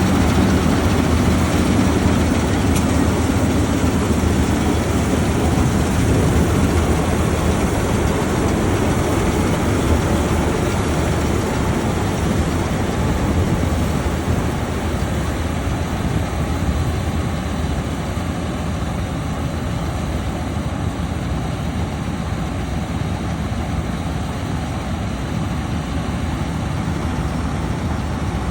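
Combine harvester running steadily as it harvests wheat: a continuous heavy engine drone with machinery noise, easing slightly about halfway through.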